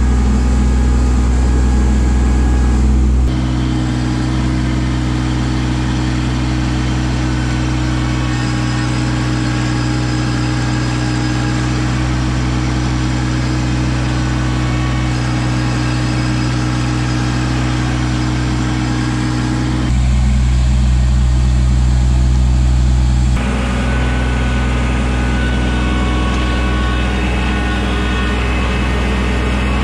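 Kubota LX2610 compact tractor's three-cylinder diesel engine running at a steady speed. Its sound shifts abruptly about three seconds in, and again twice around twenty and twenty-three seconds.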